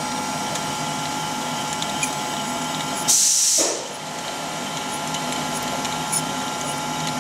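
Steady machine hum with a few steady tones, broken about three seconds in by a short, loud hiss lasting about half a second.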